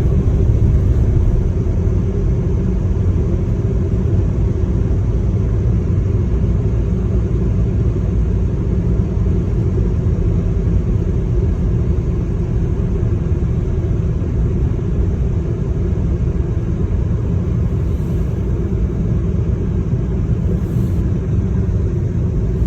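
Steady low rumble of a moving car, even and unbroken throughout.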